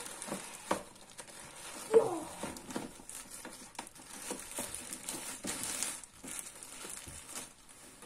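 Thin plastic bag crinkling and rustling as it is handled around an iRobot Roomba S9+ Clean Base, with scattered clicks. About two seconds in there is a short, falling squeak.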